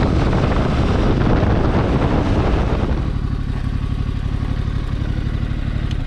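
Yamaha Tracer 7's 689 cc parallel-twin engine running under way with wind rush, settling to a steady idle about three seconds in. The sound cuts off at the very end.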